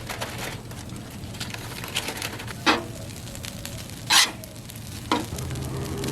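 Fried rice and ground beef sizzling on a Blackstone flat-top griddle while a spatula stirs and scrapes it, with two loud sharp scrapes about a second and a half apart near the middle.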